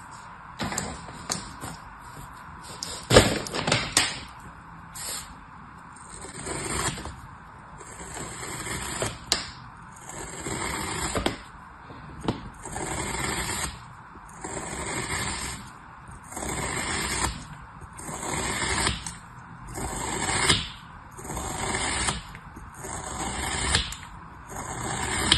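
A thin knife slicing through a molded dome of kinetic sand, cutting thin slices one after another at about one cut a second, each cut a short crunchy scrape. A few sharper knocks come about three to four seconds in.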